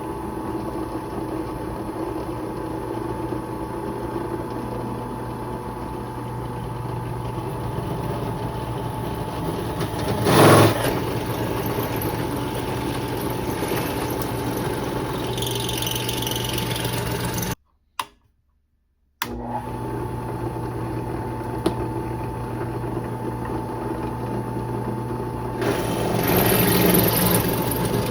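Power drill with a pilot bit and hole saw running steadily, cutting into a thin sheet-metal toolbox. There is a brief louder grinding about ten seconds in, and the drill stops briefly and restarts about two-thirds of the way through. The cutting grows louder and harsher near the end.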